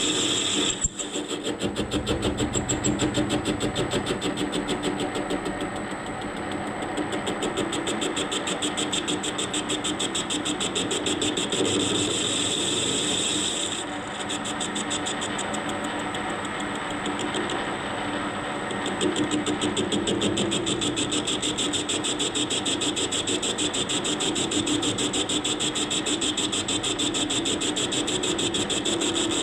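Warco 280V metal lathe running while a tool takes a turning cut on a cast wheel rim: a steady high whine from the machine with a fast, even rhythm of the cut running through it. One short knock about a second in.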